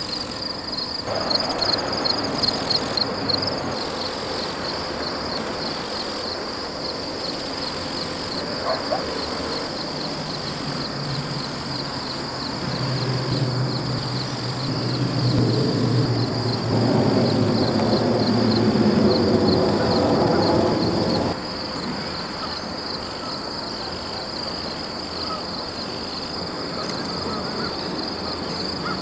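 Field insects, crickets by the sound of it, chirping in a steady high pulsing trill. A louder low noise swells up in the middle and cuts off suddenly.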